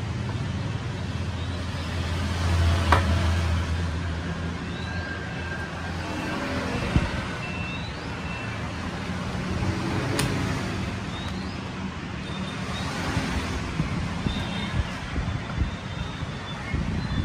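Road traffic noise with a steady rumble that swells about three seconds in. Short beeps come near the middle and again near the end, and there are two sharp clicks, one about three seconds in and one about ten seconds in.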